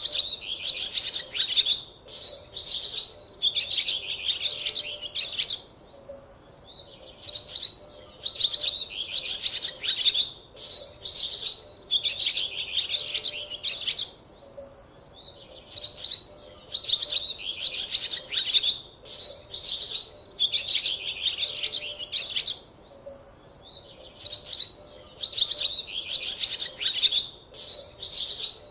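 Birds chirping: runs of rapid, high twittering song a few seconds long, repeating with short pauses between them.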